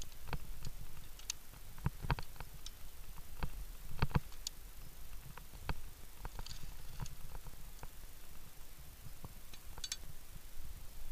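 Irregular clicks and knocks of via ferrata gear: metal carabiners and a gloved hand on the steel safety cable and rock, over a steady low rumble.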